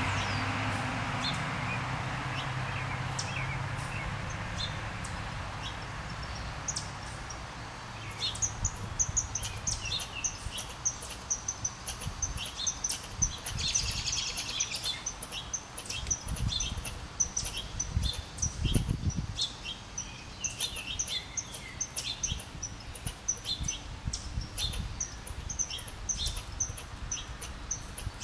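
American red squirrel's agitated chatter: a fast run of short, high-pitched ticks and chirps, starting about a third of the way in and going on steadily. It is a territorial alarm at a rival squirrel close by. A steady low rumble fades out over the first several seconds.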